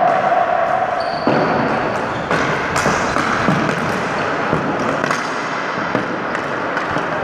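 Ball hockey play on a gym's wooden floor: a run of sharp clacks and knocks from sticks and the ball, echoing in the hall. The knocks crowd together around the net about four seconds in, during a scramble of sticks at the goalie's pads.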